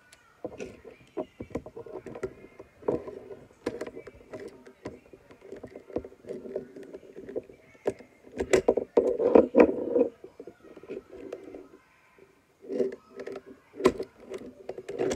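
A screwdriver working the screws of a plastic battery-powered toy train engine, with irregular clicks, scrapes and knocks of plastic against the table; the handling is loudest a little past the middle and stops briefly near the end.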